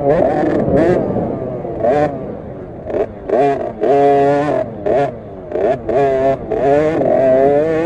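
KTM SX50's 50cc two-stroke single-cylinder engine revving hard on board the minibike, its pitch rising and falling with the throttle. It eases off about three seconds in, blips, then revs back up and holds high.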